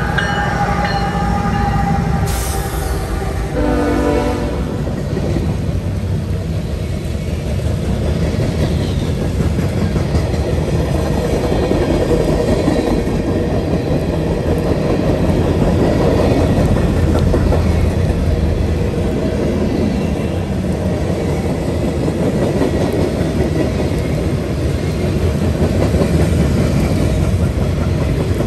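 Freight train passing close by: the diesel locomotives go past with a short horn sound about four seconds in. Then comes the steady rumble and rhythmic clatter of loaded tank cars and boxcars rolling over the rail joints.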